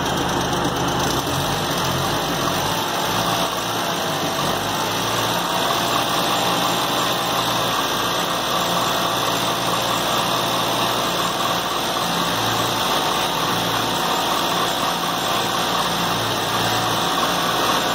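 Non-EFI, carburetted car engine running steadily with its AC compressor engaged, drawing refrigerant in through the low-pressure side during an AC recharge.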